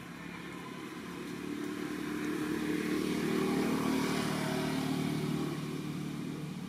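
Engine of a passing motor vehicle, growing louder to a peak about midway and then fading away.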